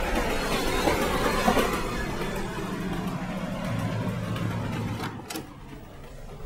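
Diesel locomotive hauling a train past on a steel bridge: a broad wash of rail and engine noise that settles into a low steady engine drone. About five seconds in it cuts off with a click and drops to a much quieter room.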